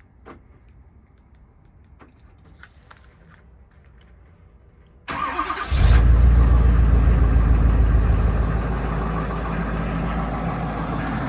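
A car engine cranks briefly and starts about five seconds in, then runs with a loud low rumble that settles slightly, after a few seconds of faint clicks.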